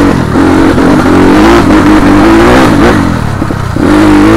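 A vehicle engine running loud under acceleration. Its pitch rises over the first two seconds or so, falls away about three seconds in, then picks up again near the end, over a steady low rumble.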